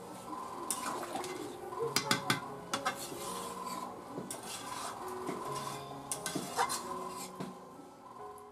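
A long metal spatula scraping and knocking against the inside of a large iron kadai as it stirs thin chicken curry. The strokes come at uneven intervals and stop a second or so before the end.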